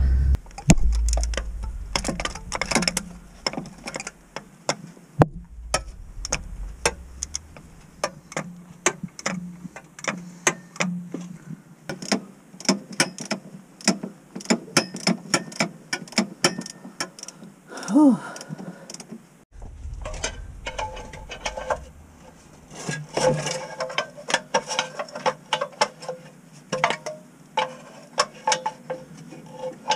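Hand ratchet clicking in runs of quick strokes on a long extension, backing out a bolt holding the Subaru's manual transmission to the engine.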